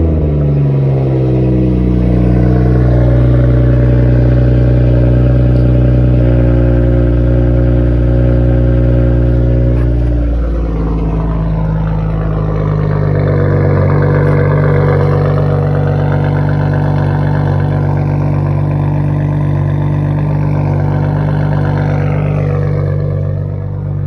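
BMW M240i's B58 turbocharged inline-six idling right after a cold start, heard through an aftermarket catted downpipe with no muffler. The exhaust drone is loud and steady, and its note shifts about ten seconds in.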